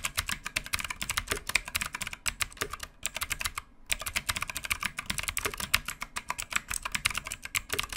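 Fast, continuous typing on an ABKO K645 mechanical keyboard with GTMX blue clicky switches: a rapid run of sharp key clicks, with a brief pause a little before halfway.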